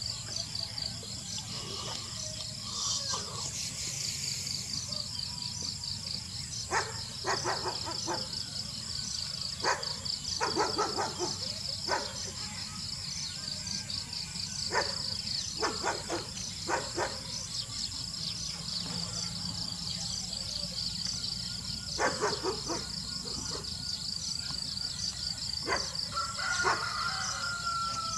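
Steady high-pitched insect chirring with a fast, even pulse, typical of crickets. Scattered short clicks or chirps come in through the middle, and a short whistled note sounds near the end.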